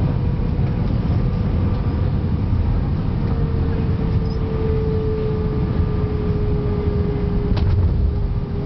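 Airbus A319 cabin noise on final approach: a steady, deep rumble of airflow and engines. A steady engine tone sets in about three seconds in and sinks slightly in pitch, with a few faint clicks near the end.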